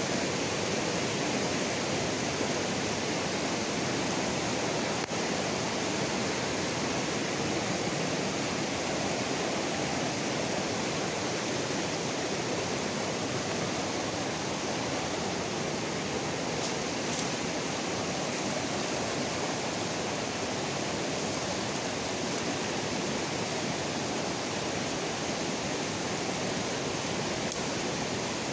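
Shallow rocky river rushing over stones and boulders: a steady, unbroken rush of white water.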